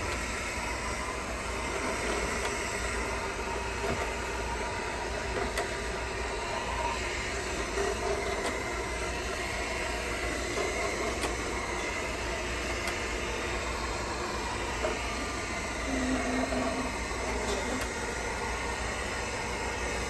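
Roomba robot vacuum running with a steady motor-and-brush hiss.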